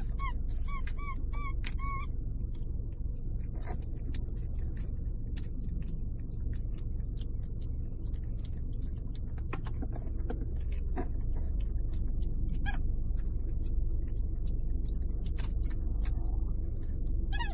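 A steady low rumble with scattered clicks and knocks; in the first two seconds, a run of about five short, high chirping animal calls, with a few more single calls later.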